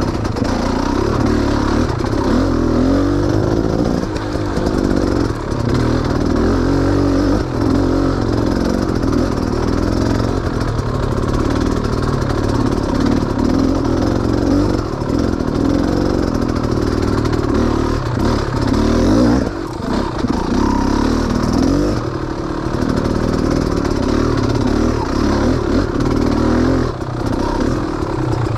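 Small off-road engine running hard, revving up and down over and over as the machine picks its way over roots and ruts, with clattering from the bike over the rough ground.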